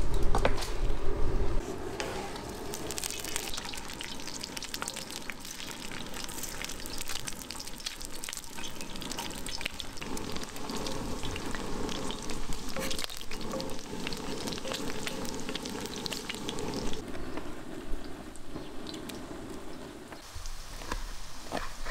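Pieces of lamb tail fat sizzling and crackling as they render in hot fat in a wide black metal pan, stirred with a wooden spatula. The sizzling thins out for the last few seconds.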